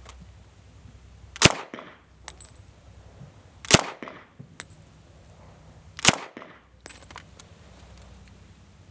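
Three single gunshots from a 1921 Colt Thompson submachine gun, fired one at a time a little over two seconds apart, each with a short echo trailing off.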